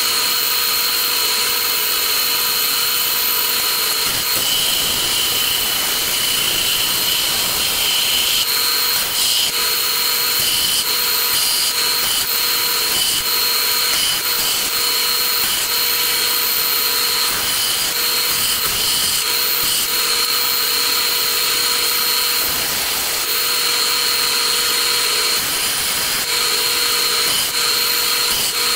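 Bench belt-and-disc sander running at a steady pitch, with a steady whine over the motor noise, while a small wooden piece is pressed against the moving belt and sanded.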